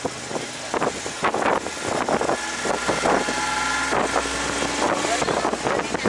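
A vehicle driving along, with its engine running, frequent knocks and rattles, and wind noise on the microphone.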